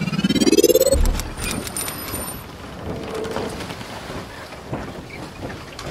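Logo intro sound effects: a rising swoosh through the first second ending in a low thud, then a brief high shimmer, followed by a steady noisy hiss with faint ticks.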